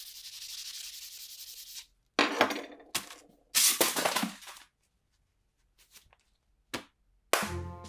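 Sandpaper on a block being rubbed along a steel bayonet blade, a steady scratchy hiss for about two seconds. Then come two loud sudden noises a second and a half apart, and music with a low beat starts near the end.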